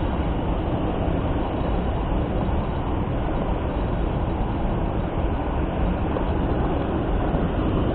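Steady rushing of a trout stream's current, an even flowing-water noise with no breaks.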